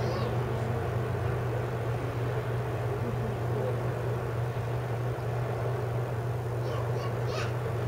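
Outdoor street ambience: a steady low hum under a wash of road traffic, with a few short high chirps near the end.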